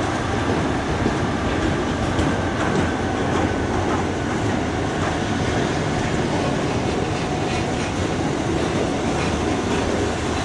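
A freight train of covered steel-coil wagons rolls past on the adjacent track, a steady rumble and clatter of wheels on rail, as the steam locomotive Tornado draws slowly into the station.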